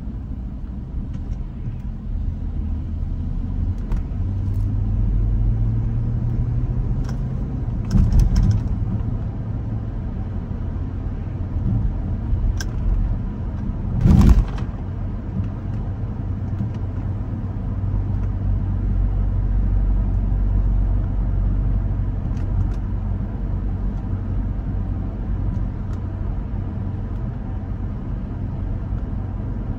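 Car driving, with a steady low engine and road rumble and a few short knocks, the loudest about fourteen seconds in.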